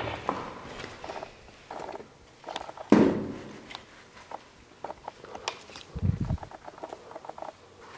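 Footsteps and scattered small knocks in a large empty building, with one loud sharp knock about three seconds in that rings on briefly, and a short low thud around six seconds.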